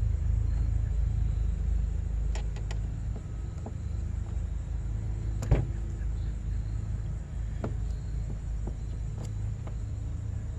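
Several sharp plastic clicks from fuses and fuse-box parts being handled, one louder snap about five and a half seconds in, over a steady low rumble.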